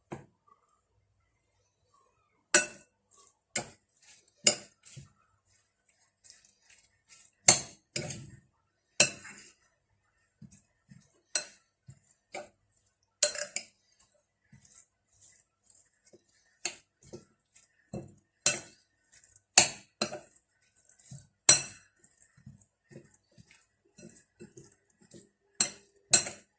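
Kitchen utensil clinking and knocking against a dish: about a dozen sharp, irregular strikes with a short bright ring, and fainter taps between them.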